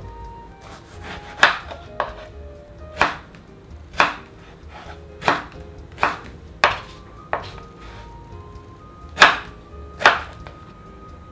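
Chef's knife slicing through a peeled peach and knocking on a wooden cutting board, about ten separate cuts at an uneven pace.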